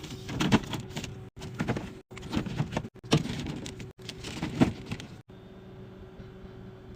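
Items being handled and set down with clattering knocks in short bursts, broken by abrupt cuts. After about five seconds it gives way to a steady low hum.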